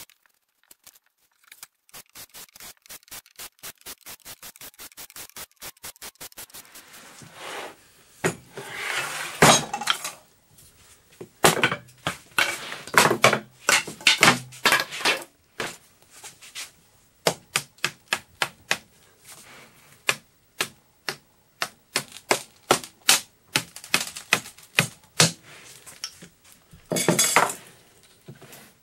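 Sped-up workshop sounds of a cordless drill backing screws out of a wooden mold, heard as a fast, even run of clicks. From about eight seconds in, these give way to a string of sharp mallet knocks and clatter as the mold sides are tapped loose from a cured epoxy-and-wood panel.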